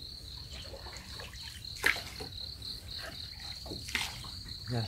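Insects chirping in a steady, high, pulsing trill, with a sharp knock a little under two seconds in and a softer one about four seconds in.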